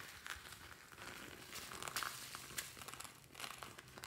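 Crinkling and rustling of a plastic-coated zippered pencil case being handled and tipped out, with small foam beads spilling into a glass dish as scattered light clicks.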